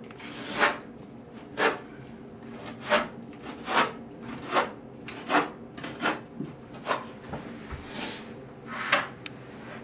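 Margin trowel scraping excess tile mortar off, in short rasping strokes about once a second.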